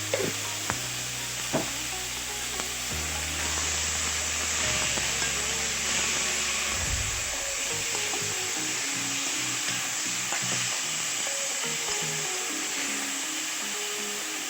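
Spiced potato filling frying and sizzling steadily in hot oil in a pan as it is stirred, with a few sharp knocks of the spatula against the pan in the first couple of seconds.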